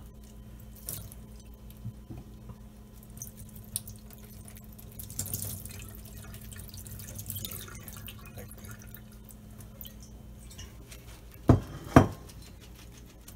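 Rinse water trickling and dripping, with light clinks and a spell of splashing in the middle. Near the end come two sharp knocks about half a second apart, the loudest sounds.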